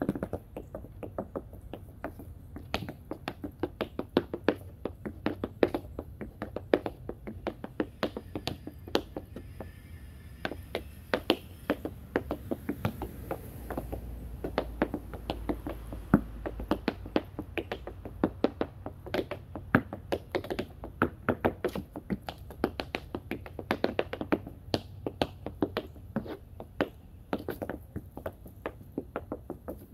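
Tap shoes striking a tap board: quick runs of sharp heel and toe taps in uneven, rhythmic patterns with short breaks between phrases.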